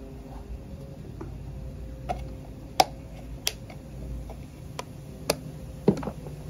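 Irregular sharp clicks and light taps, about six scattered over a few seconds, over a faint steady hum.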